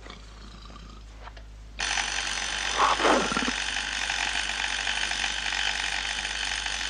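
An electric alarm buzzer switches on abruptly about two seconds in and sounds steadily, with a brief falling sound over it about a second after it starts.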